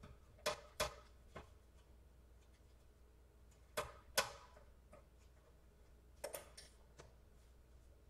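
Sharp plastic-and-metal clicks and taps as the ASUS UX301L laptop's bottom cover is handled and pressed into place: a pair about half a second in, a louder pair about four seconds in, and a short cluster just past six seconds.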